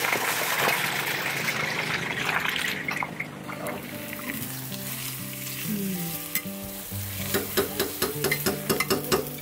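Eggs frying in a pan with a steady sizzle, and a spatula scraping and tapping against the pan in a quick run of clicks near the end. Background music with long held notes comes in about halfway through.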